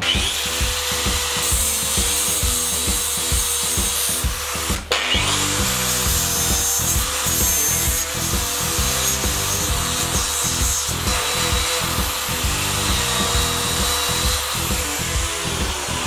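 Metabo angle grinder grinding a steel piece held in a vise: a steady motor whine over a harsh grinding hiss, with a short break about five seconds in. Background music with a beat plays underneath.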